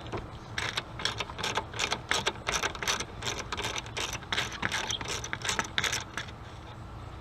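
Ratchet wrench clicking in a quick run of sharp clicks as the negative battery terminal clamp nut is loosened; the clicking stops about a second before the end.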